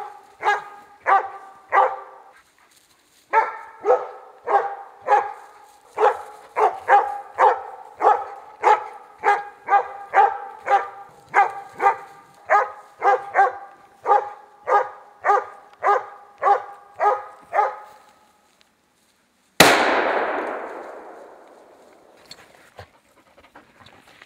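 A moose-hunting dog barking at bay at a standing moose, a little under two barks a second with a short pause about two seconds in. The barking stops, and a single scoped hunting-rifle shot follows, its report rolling away over about three seconds.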